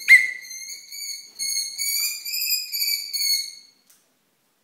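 Young American kestrel calling: a sharp, loud start, then a drawn-out, wavering whining call with brief dips, ending after about three and a half seconds.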